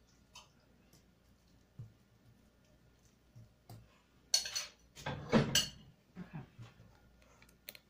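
A spoon scraping and clinking against a serving bowl as filling is scooped out, in a few small clicks. About four seconds in comes a louder clatter of dish and spoon as the bowl is handled and set down on the stove, then a few faint knocks.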